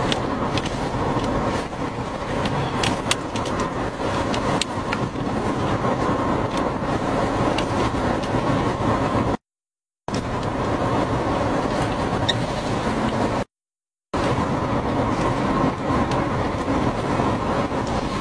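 Steady rushing roar of strong storm wind, cut off twice by short drops to silence.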